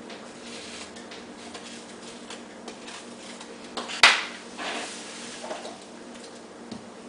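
A single sharp knock about four seconds in, followed by brief scraping, over a steady faint hum.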